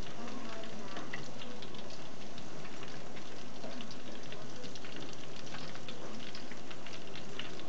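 Breaded cauliflower deep-frying in hot oil in a small pan: a steady sizzle with many small crackles.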